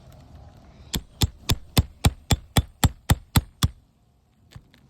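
Hammer tapping on a roof shingle, eleven quick, even light strikes at about four a second while a roofing nail is being worked loose, then a couple of faint knocks near the end.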